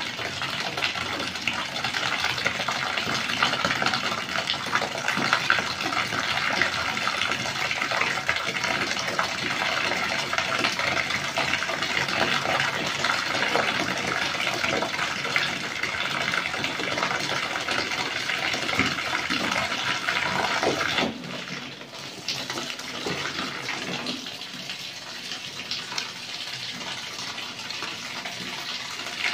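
Water from a shower hose running into a plastic basin full of laundry, a steady splashing rush. It becomes softer about two-thirds of the way through.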